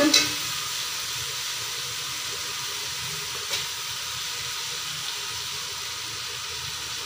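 Steady hiss of onion-tomato masala cooking in a steel pot over a gas burner, with one brief knock about three and a half seconds in as raw chicken pieces go into the pot.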